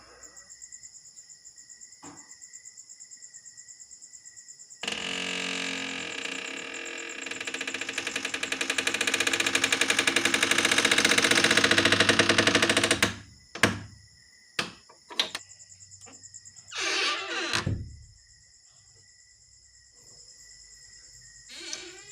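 Door hinge creaking for several seconds as the door swings, growing louder. Then a few sharp clicks of the door and latch, and a shorter creak that falls in pitch.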